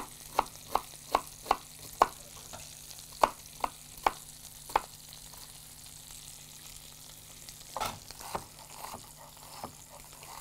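Chef's knife chopping vegetables on a wooden cutting board: a quick run of sharp strokes, about two to three a second, for the first five seconds, then a few scattered cuts near the end. Underneath runs the steady sizzle of a rib-eye steak frying in butter and olive oil in a pan.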